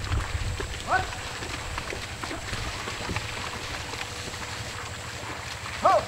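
A ploughman's short calls with a sharply falling pitch, urging a pair of water buffalo on while ploughing a flooded paddy field: one about a second in and a louder one near the end, over a low rumbling noise.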